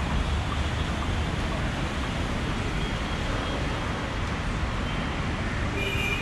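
Steady city street traffic noise with a low rumble. A short pitched tone sounds briefly a little before the end.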